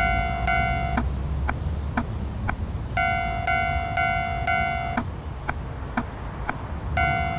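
Level crossing alarm, as in a cartoon: an electronic bell tone dinging about twice a second, switching to sharp ticks at the same pace after about a second, back to dings about three seconds in, and to ticks again about five seconds in, with a low rumble underneath.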